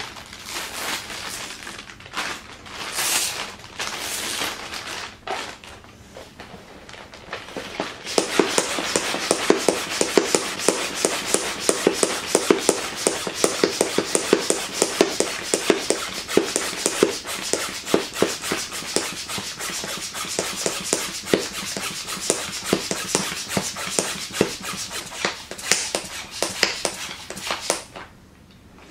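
Plastic vacuum storage bag crinkling as it is handled, then a hand pump on the bag's valve worked in a fast, even run of strokes, several a second, each a short puff of air as the air is drawn out of the bag. The pumping is played back at double speed and stops near the end.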